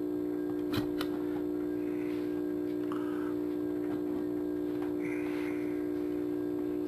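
A steady hum with overtones runs throughout. About a second in there are two light clicks, and later there are faint rustles as hands handle the metal plates and insulators of the cell stack.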